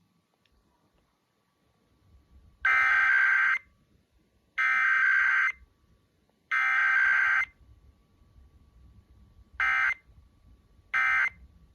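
Emergency Alert System SAME digital header: after a short pause, three buzzy data bursts of about a second each, then two short end-of-message bursts near the end. These are the coded tones of a broadcast station's weekly EAS test.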